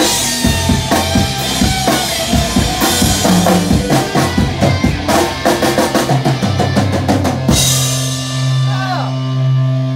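Live rock band with a drum kit and electric guitar playing, the drums hitting busily with a fast fill past the middle. About three-quarters of the way through the drums stop and a held guitar chord rings out, the song's final chord.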